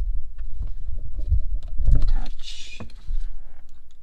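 Handling noise: heavy low bumps and many small sharp clicks, with a short hiss about two and a half seconds in.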